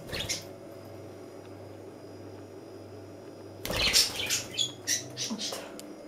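Budgerigar giving a quick flurry of short, sharp chirps and squawks starting a little before the fourth second, after a few seconds of only faint room hum.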